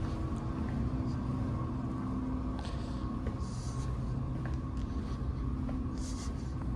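Steady low mechanical hum with several constant tones, with a few brief rustling sounds.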